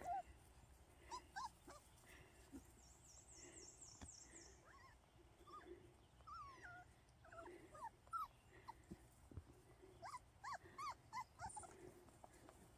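Five-week-old Miniature American Shepherd puppies whimpering and yipping in short high squeaks, scattered through, with a quick cluster near the end.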